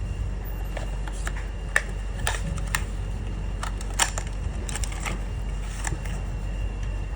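Scattered small, sharp clicks and taps of tools and parts being handled during a smartphone repair, about eight in all, over a steady low hum.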